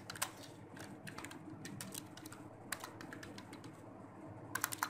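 Computer keyboard typing: scattered single keystrokes, then a quick run of several near the end.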